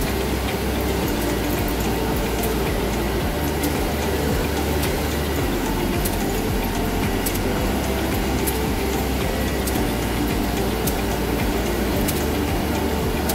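Snack production-line machinery running: a steady mechanical hum and rumble, with a faint high tone and occasional light ticks.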